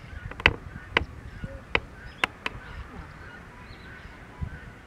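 Waterbirds calling at a distance, a scatter of many short calls, with five sharp clicks in the first two and a half seconds.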